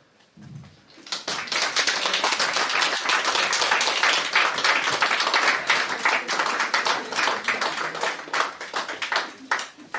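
Congregation applauding: many hands clapping together, starting about a second in and dying away near the end.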